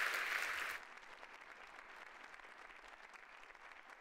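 Audience applauding, the clapping dying away and cutting off abruptly under a second in, then near silence.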